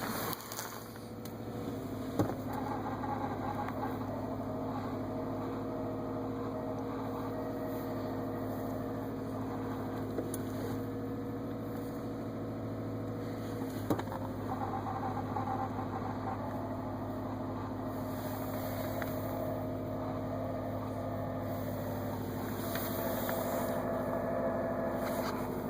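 2014 Subaru WRX's turbocharged flat-four idling cold, with a steady grinding noise from the clutch and gearbox that shows with the clutch pedal out. The owner takes it for a failing throwout bearing, which replacement cures only for a while.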